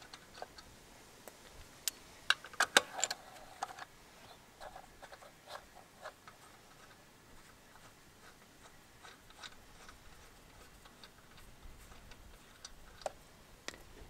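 Light metallic clicks and ticks of wheel nuts being turned by a gloved hand on a car wheel's studs. A quick run of sharp clicks comes about two to three seconds in, then scattered single ticks.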